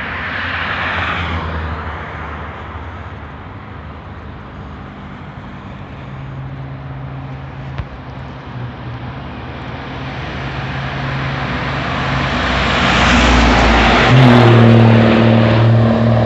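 Highway traffic passing: a car goes by just after the start, then a heavy truck approaches, its low, steady engine note growing louder until it passes close near the end.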